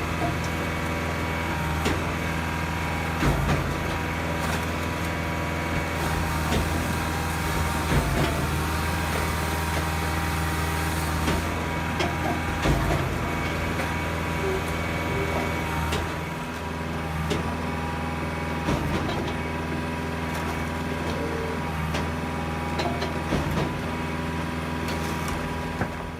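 Firewood processor running: its engine and hydraulics drone steadily while logs knock and crack irregularly as they are cut and split.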